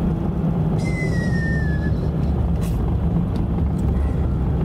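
Steady low rumble of a vehicle's engine and tyres on a snow-covered highway, heard from inside the cabin. About a second in comes a brief thin high squeak that falls slightly in pitch.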